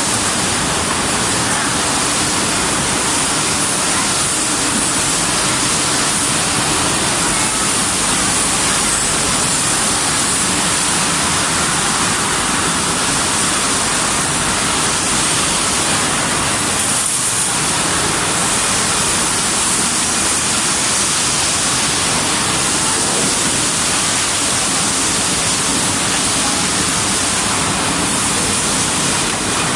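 Commercial plate-washing machine running, with a steady rush of water spray.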